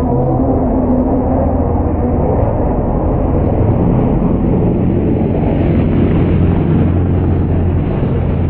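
Pro stock race trucks' engines running loud and revving as the trucks circle the oval together.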